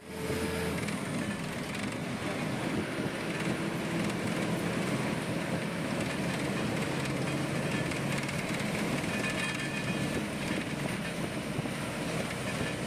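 Steady engine and road noise heard from inside a moving KSRTC Sarige bus at speed.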